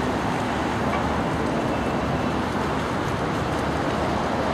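Steady city traffic noise, an even wash of sound with no single event standing out.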